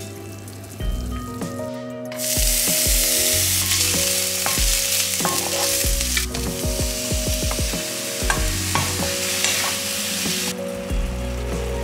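Minced garlic and sliced mushrooms sizzling in hot oil in a wok while a wooden spatula stirs them. The sizzling starts about two seconds in and cuts off suddenly near the end, over soft background music.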